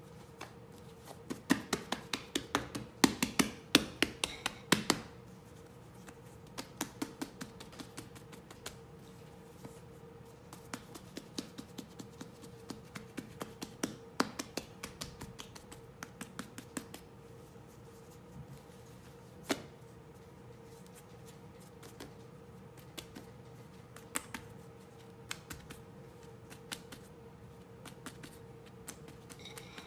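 Hands patting and pressing bread dough flat on a granite countertop, then folding and rolling it: a quick run of sharp pats for a few seconds, then scattered lighter taps.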